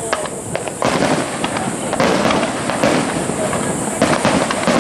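Aerial firework shells bursting overhead in a dense run of crackling reports, with fresh bursts about a second, two seconds and four seconds in.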